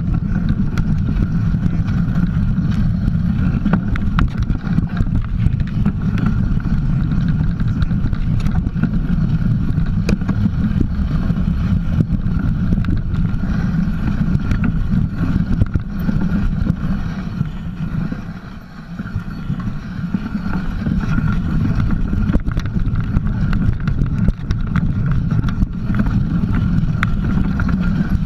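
Mountain bike riding along a dirt trail, heard from a camera mounted low on the bike by the front tyre: a loud low rumble of wind on the microphone and tyre on dirt, with many small clicks and rattles from the bike. The rumble briefly drops away about two-thirds of the way in.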